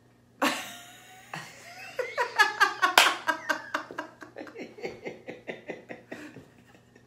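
A woman laughing: a rapid run of laughs that peaks about two to three seconds in and trails off.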